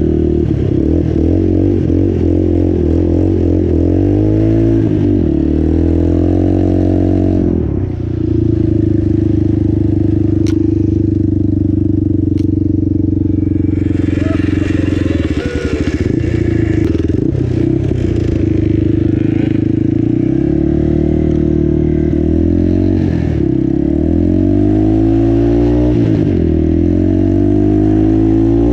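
Yamaha Warrior 350 ATV's single-cylinder four-stroke engine working through deep snow, revs rising and falling again and again, holding steadier for a while in the middle and climbing again near the end.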